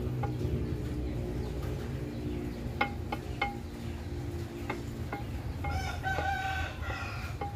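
A rooster crows once near the end, one long call. A few sharp metal clinks come about three seconds in as hands work at the scooter's rear brake caliper, over a steady low hum.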